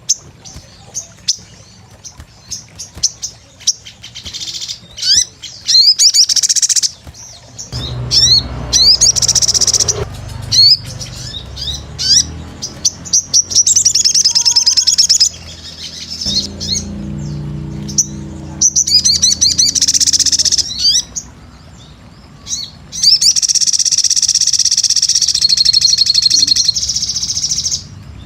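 A crimson sunbird (sogon) singing vigorously: bursts of very high, sharp chirps and rapid twittering trills, ending in a long trill of about five seconds. A low hum runs underneath through the middle stretch.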